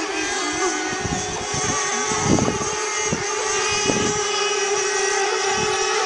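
Radio-controlled racing power boat engines running flat out across the water, a steady high-pitched whine. A few low bumps sound under it.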